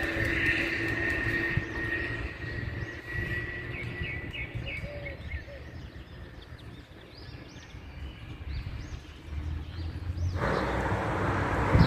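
Street ambience: a steady low rumble of traffic with small birds chirping in short repeated calls. About ten seconds in, a loud rushing noise sets in and swells near the end.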